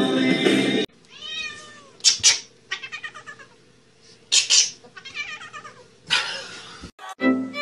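Domestic cat meowing and yowling in a string of drawn-out, wavering calls, broken by a few short harsh bursts.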